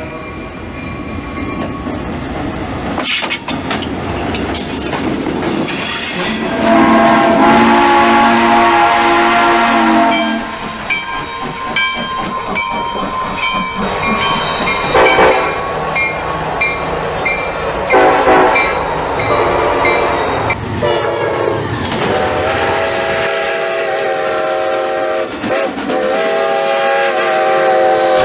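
Railroad sounds: a diesel locomotive's air horn blowing long blasts at a grade crossing, with wheels clicking over the rails. Near the end, a steam locomotive's whistle sounds in long blasts.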